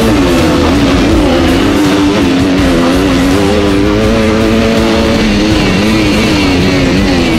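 Kawasaki KX250F four-stroke single-cylinder motocross bike revving hard at a race start, its pitch dropping sharply at an upshift right at the start, then rising and falling as the rider works the throttle. Rock guitar music plays along with it.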